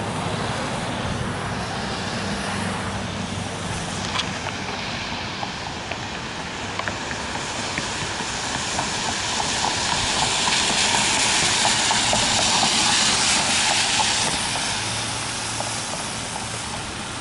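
Car and road noise on rain-soaked streets: a steady low engine rumble under a hiss of tyres on wet pavement, swelling louder and brighter about ten seconds in, then easing off.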